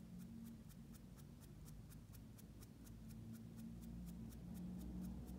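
Quiet room tone: a faint steady low hum with a rapid, even, faint ticking of about five ticks a second.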